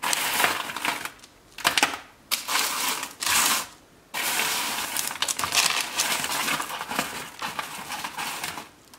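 Crunchy baked oat granola clusters rustling and clinking as a hand rummages through them on a metal baking tray. There are several short bouts in the first few seconds, then a longer continuous stretch from about four seconds in.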